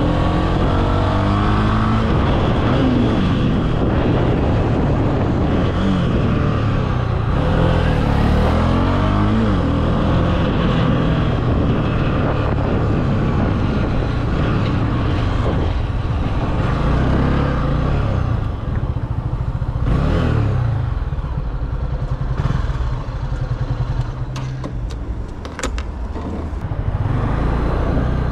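Honda CB300F's single-cylinder engine on the move. The revs rise and fall as it pulls through the gears for about the first ten seconds, then it runs steadier and eases off, going quieter for a few seconds near the end.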